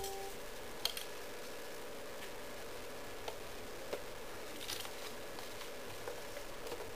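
Scattered light clicks and taps of plastic Lego parts as the toy garbage truck's compactor and hopper are worked by hand, with sharper clicks about a second in and near five seconds, over a faint steady hum.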